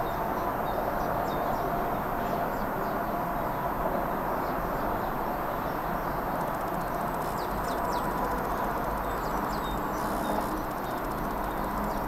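Birds chirping faintly and now and then, more often in the second half, over a steady, noisy outdoor background.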